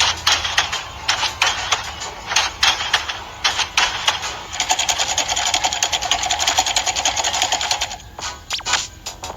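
Quick metallic clicks and clattering, then a fast, even mechanical rattle that runs for about three and a half seconds from about halfway through, then a few scattered clicks.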